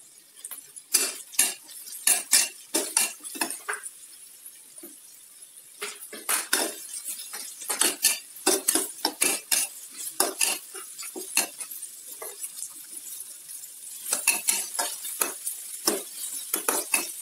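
Metal spatula scraping and clanking against a wok as sliced vegetables are stir-fried, over a steady sizzle. The strokes come in three quick spells, with short pauses about 4 s and 12 s in.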